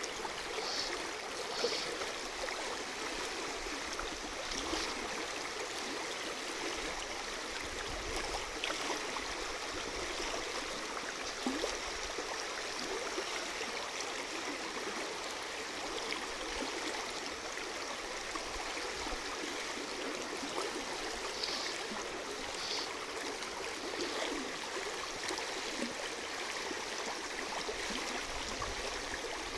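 Steady rush of a fast-flowing river running over its bed.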